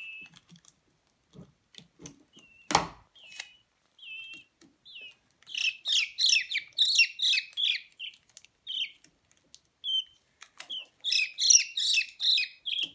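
A peachick peeping: single high peeps at first, then two runs of rapid peeps in the second half. One sharp knock or crackle comes about three seconds in.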